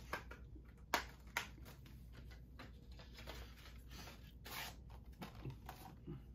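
Hands handling a plastic Blu-ray case: two sharp plastic clicks about a second in, then rustling and a brief sliding scrape a little past the middle.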